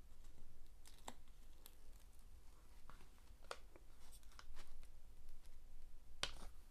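Protective cover sheet of a diamond painting canvas being peeled back from its sticky glue layer: faint, scattered crackles and ticks, with a louder crackle near the end.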